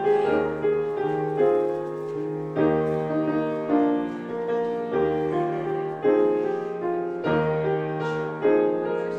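Piano playing a slow hymn introduction: sustained chords over a bass note, a new chord struck about every second.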